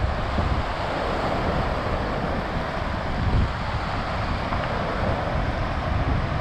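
Wind buffeting the microphone in low, irregular gusts over a steady rush of waves breaking on the lake shore.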